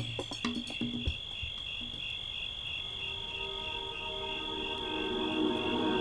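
Crickets chirping in an even, rapid, high-pitched pulse. The last drum hits sound in the first second, and soft sustained ambient music tones fade in from about the middle.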